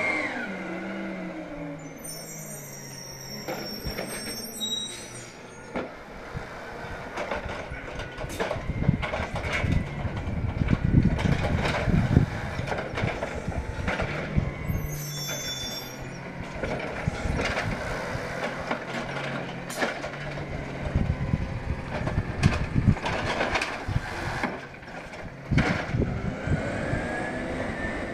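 Compressed-natural-gas Peterbilt 320 side-loader garbage truck working along the curb: the engine slows and settles into a steady run, with air-brake hisses and a run of clanks and knocks from the automated arm and the carts.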